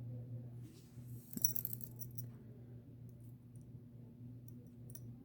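Small metal keychain clinking as it is handled, with a cluster of light clinks a little over a second in and a few fainter ticks later, over a steady low hum.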